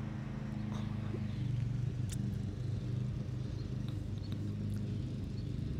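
Steady low hum of a running motor, with a few faint ticks.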